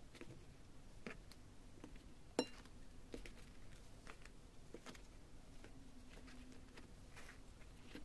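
Faint, scattered taps of eclairs being set down on a glass platter, with one sharper clink about two and a half seconds in.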